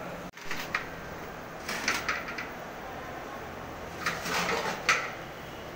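A few short rustling, scraping handling sounds as a stack of cooked rumali rotis is torn and pulled apart on a steel plate, over a steady low hum. The sounds come about half a second in, around two seconds in, and again from about four to five seconds.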